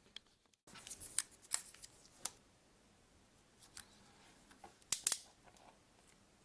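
Small plastic parts and hand tools being handled: irregular sharp clicks and snips, the loudest cluster about five seconds in.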